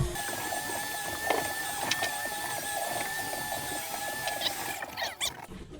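Electric deep-drop fishing reel's motor whining steadily as it winds in line, then stopping near the end.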